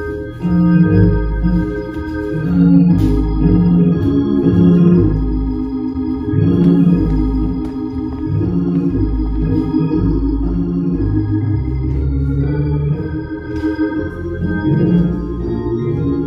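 Organ music: sustained chords over a low bass line that moves about once a second.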